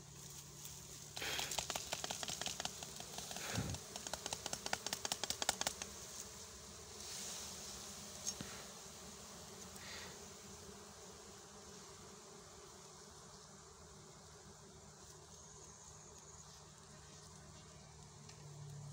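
Honeybees buzzing around an exposed comb as a low, steady hum. In the first few seconds this is overlaid by a burst of rapid clicking and crackling.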